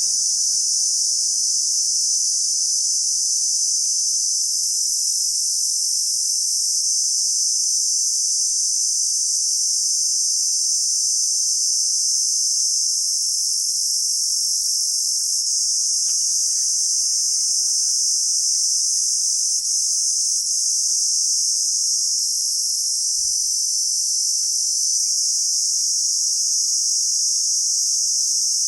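A dense chorus of insects trilling without a break, a steady high-pitched shrill.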